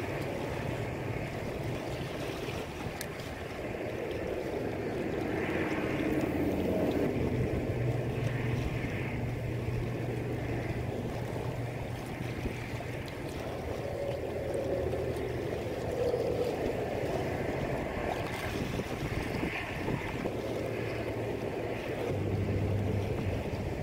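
Wind buffeting the microphone over choppy open water, with waves lapping and a low steady hum underneath.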